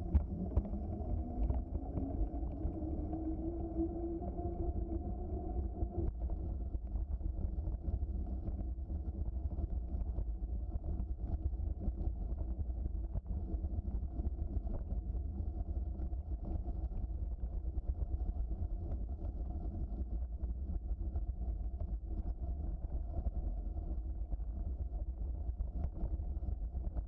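Bicycle riding noise picked up by a bike-mounted camera: a dull, low rumble of tyres on the trail and wind on the microphone. A hum rises in pitch over the first six seconds, then holds steady.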